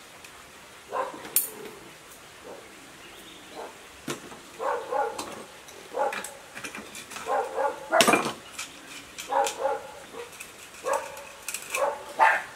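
A dog barking repeatedly, short barks in clusters every second or so, starting about a second in, with a few sharp clicks from the bench work.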